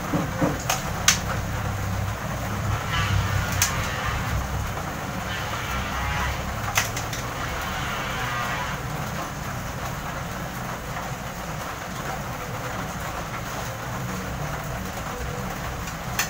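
A few light clicks and knocks as pieces of raw milkfish are laid into an aluminium wok on top of the vegetables, mostly in the first several seconds, over a steady low background hum.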